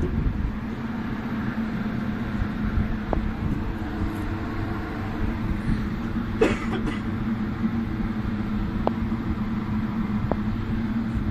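Steady low mechanical drone with a hum, with a few faint clicks and one sharper knock about six seconds in. No shots are fired.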